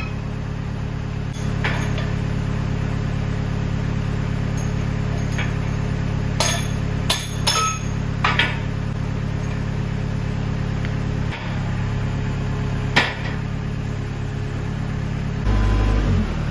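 A hammer knocking and clinking on the loader's steel parts, a few sharp separate strikes, over an engine idling steadily. Near the end the engine note gets louder and wavers up and down.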